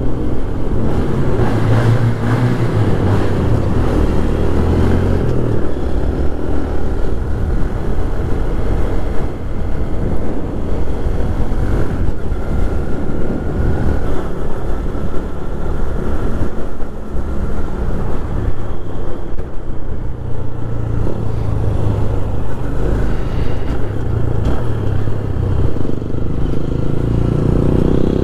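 Motorcycle engine running under way, its note rising and falling with the throttle, over steady road and wind noise.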